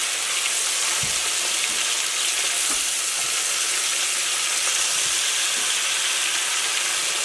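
Battered pike chunks deep-frying in hot oil in a cast-iron skillet: a steady, even sizzle.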